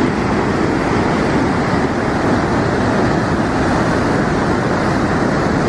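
Fast-flowing water rushing with great force, a loud, steady roar.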